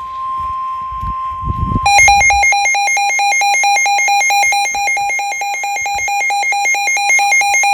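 NOAA Weather Radio warning alarm: a steady single-pitched tone, the 1050 Hz warning alarm tone, for about two seconds. Then a rapidly pulsing, buzzy electronic alarm beep takes over, about eight beeps a second.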